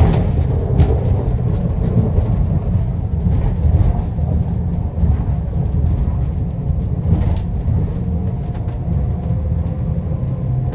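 Twin Honda 250 hp V6 outboards running steadily with the boat under way, heard from inside the wheelhouse as a continuous low rumble.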